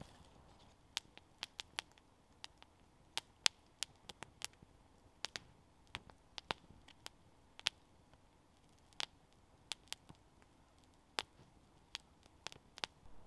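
Small wood campfire crackling: sharp pops and snaps at an irregular pace, roughly two a second, some much louder than others, over a faint steady background.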